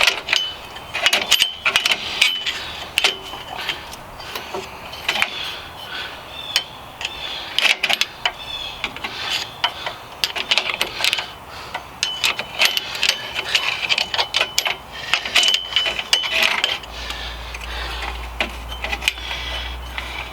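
Hand ratchet clicking in short runs as a rear hub-assembly mounting bolt is turned loose, with metal-on-metal clinks of the tool and brief high squeaks. A low rumble comes in near the end.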